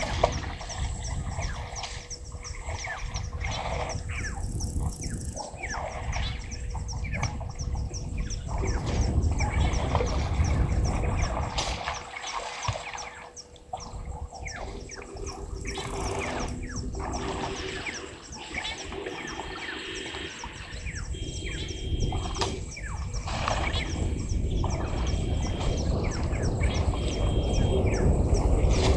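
Birds chirping and calling over a steady low rumble, with a faint high whine held throughout.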